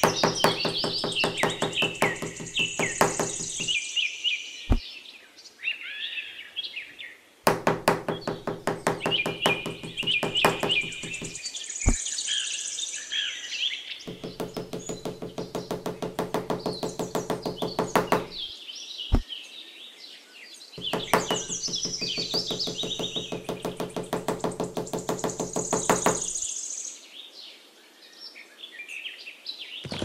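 Fast, evenly repeated knocking in four runs of several seconds each, with a few single sharp knocks between them. Birds chirp throughout.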